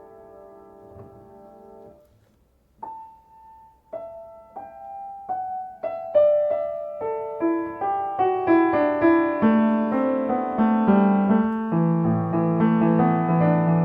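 Solo piano tuned to C = 528 Hz: a held chord fades almost to silence, then single notes enter one by one about three seconds in and build into a denser, louder passage, with low bass chords joining near the end.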